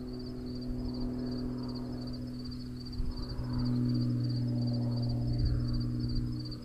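Propeller aircraft engine droning steadily overhead, a low hum that grows a little louder about halfway through. An insect chirps in a fast, even rhythm alongside, about four chirps a second.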